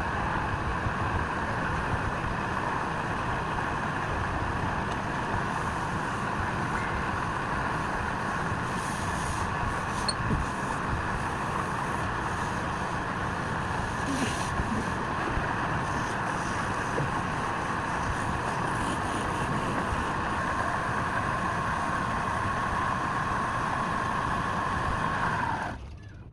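Wood lathe running steadily with a constant motor hum and noise; it cuts off abruptly near the end.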